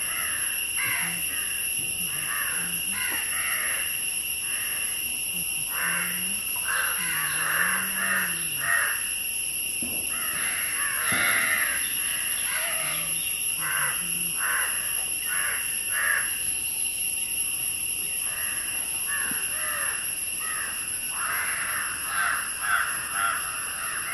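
Forest ambience: a steady high-pitched insect drone, with short bird calls repeated in clusters over it.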